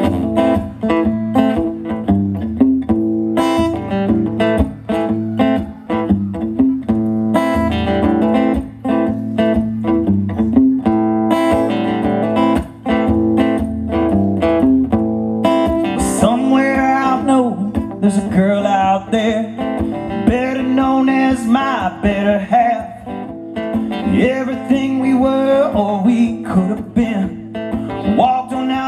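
Acoustic guitar playing the opening of a folk song. About halfway through, a second lead line with sliding, wavering pitches comes in over the picking.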